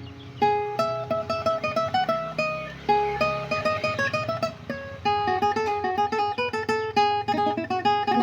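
Requinto, the small high-tuned Mexican guitar, played: a quick melodic line of plucked single notes with occasional chords.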